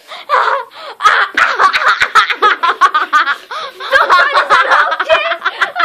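A child laughing hard, in quick repeated bursts that start about a second in.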